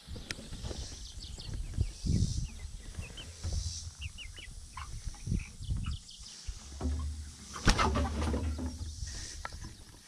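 Young chickens peeping, with short high calls scattered through, over a low rumble. A sharp knock comes just under eight seconds in.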